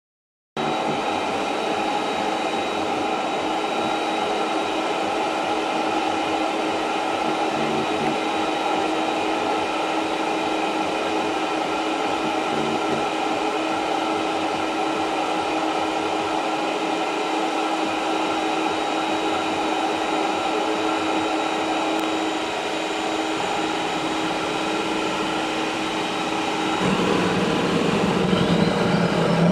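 Small bench-mounted jet engine spinning, a steady loud rushing noise with a high whine. About 27 seconds in it grows louder and deeper.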